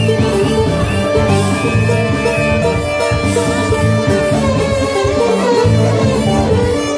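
Live band playing an instrumental passage of a Greek popular song, with no singing. Keyboard and plucked strings play long held melody notes over a steady beat.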